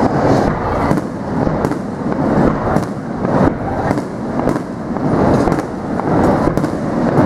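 Aerial firework shells bursting overhead in quick succession: a continuous run of bangs and crackles, two or three a second.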